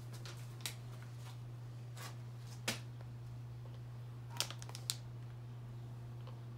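A metallic anti-static plastic bag crinkling and crackling as it is handled, in short sharp crackles, the loudest cluster about four and a half seconds in. A steady low hum runs underneath.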